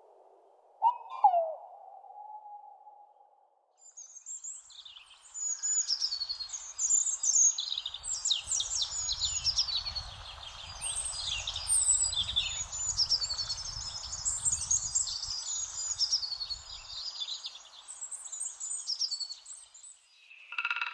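A tawny owl's hoot trails off with a wavering note in the first few seconds. Then, from about four seconds in, songbirds including a European robin sing a dense, high-pitched evening chorus of fast chirps and trills that continues almost to the end.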